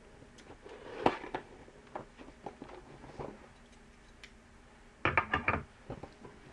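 A taped cardboard box being opened and handled: scattered knocks and clicks, then a louder rapid cluster of them about five seconds in.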